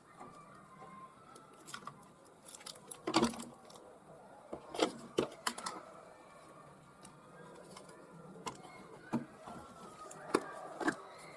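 Small objects being handled, with scattered clicks and light knocks at irregular intervals; the loudest come about three and five seconds in.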